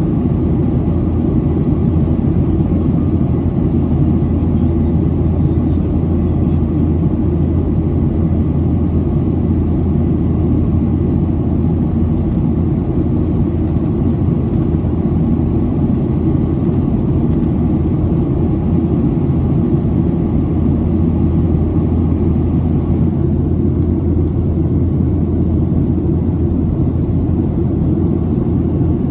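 Cabin noise inside a Boeing 737-700: a steady, loud, low rumble of the engines and airflow, with no change in pitch.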